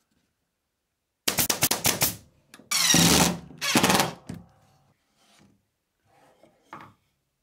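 Power driver driving three screws through a hinge leaf into a wooden fence, in three short bursts a little over a second in, the first a rattle of rapid clicks. Faint knocks of handling follow.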